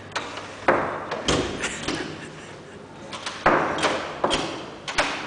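Knocking and thuds on a wooden hotel room door: about ten sharp knocks in irregular clusters.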